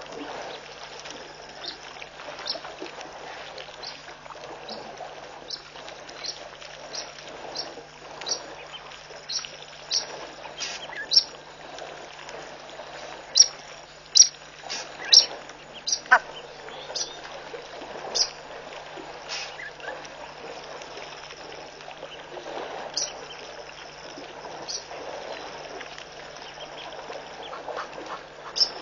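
A bird repeating short, sharp high calls, about one a second, loudest in the middle and thinning out later, over a steady wash of water from elephants drinking at a waterhole. A low steady hum runs underneath.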